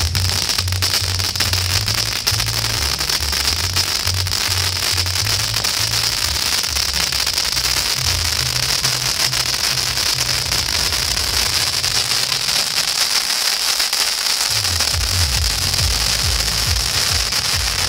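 'Queen of Welding' firework fountain burning with a steady hiss and crackle of sparks. Music with a deep bass line plays over it, and the bass drops out briefly about twelve seconds in.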